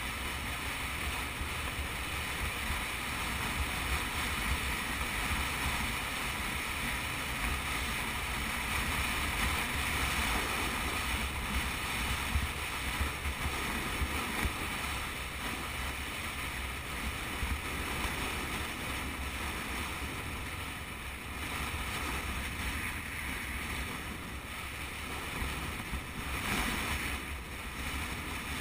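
Steady wind rushing over the microphone of a sport motorcycle at cruising speed, with the bike's engine and road noise running underneath.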